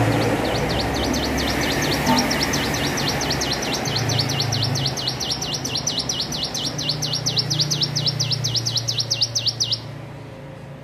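Ciblek gunung, a prinia, singing one long rapid-fire trill of sweeping notes, about six a second, growing louder before stopping abruptly near the end; a young bird learning its song. A steady low hum runs underneath.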